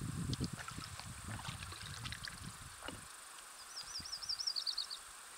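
Water sloshing and knocking against a canoe hull, irregular through the first three seconds, with scattered light ticks. About three and a half seconds in, a bird gives a short, high, wavering warble lasting about a second.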